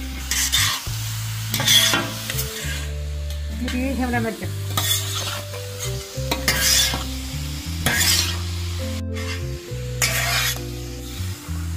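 Metal spatula stirring and scraping sliced bell peppers and onions over a large flat tawa griddle, with sizzling as the vegetables fry, in irregular strokes a second or two apart.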